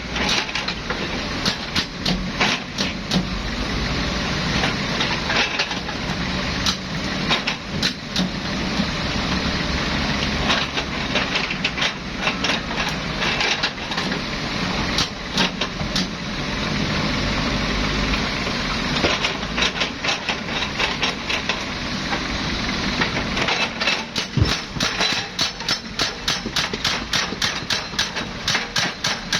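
Excavator at work: the diesel engine runs steadily under repeated clanks and clatter of rock and metal. Near the end the knocks settle into a fast, even rhythm.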